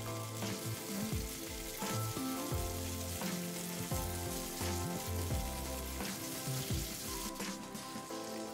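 Tofu slabs frying in hot oil in a nonstick wok: a steady sizzle that flares each time another slab is laid in, about every second, over soft background music.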